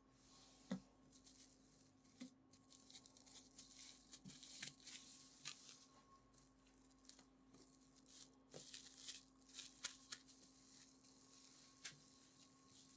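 Plastic cling wrap crinkling and rustling faintly as hands fold it around discs of dough, with a few soft knocks in between.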